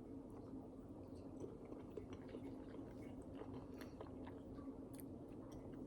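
Faint close-up chewing of a deviled egg, with small scattered mouth clicks.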